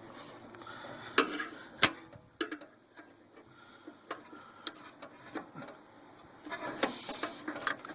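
Irregular sharp clicks and light taps of a screwdriver and small plastic and metal parts being handled, a dozen or so spread over several seconds, the loudest about two seconds in.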